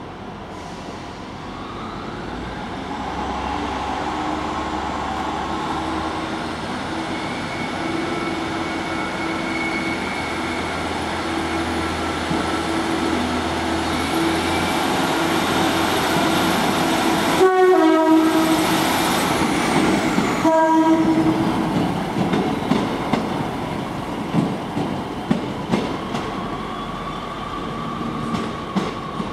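Diesel railcar pulling away under power, its engine note swelling and then holding steady. About 17 seconds in a train horn sounds, a long blast and then a short one. Wheels then knock irregularly over the track joints and points.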